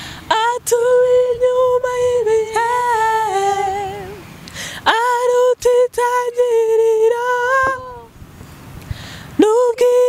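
Women singing a Kinyarwanda gospel praise song unaccompanied, in three long held phrases with short breaks between them.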